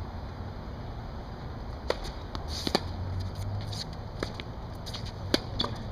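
Tennis balls being struck by rackets and bouncing on a hard court during a rally: a string of sharp pops from about two seconds in, the loudest near the end, over a steady low hum.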